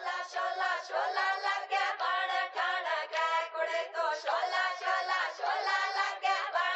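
Music: high singing voices chanting short phrases of a song's opening, with no bass or instruments beneath them.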